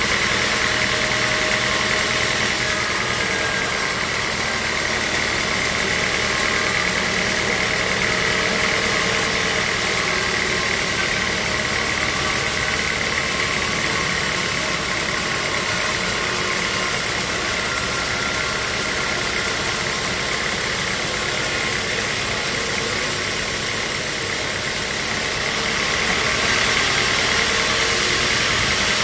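Sawmill machinery running steadily: a motor's drone with a constant high whine and hiss. Near the end the hiss brightens and the sound grows a little louder.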